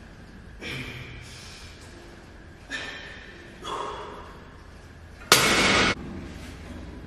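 A man breathing hard through a set of cable chest flies, with short forceful exhales every second or two and one loud, hissing exhale about five seconds in.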